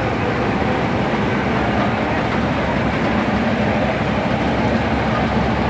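Steady engine rumble over a continuous noisy din, holding the same level throughout.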